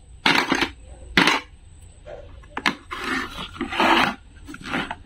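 Hands handling wooden and plastic toy play-food pieces: about six short scraping and rubbing noises, spaced unevenly.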